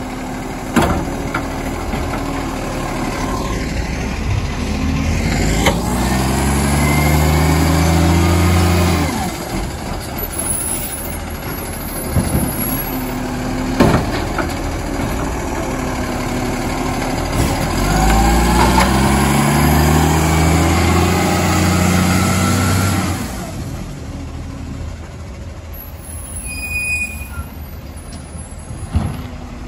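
Garbage truck engine revving up twice, each time for several seconds before dropping back to idle, as it drives its hydraulics through a bin pickup cycle. Sharp knocks at intervals are the kind made by bins or the lifting gear.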